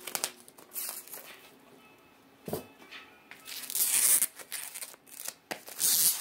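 Clear plastic shrink-wrap being torn and crinkled off a boxed eyeshadow palette, in irregular rustling bursts, loudest about four seconds in and again near the end.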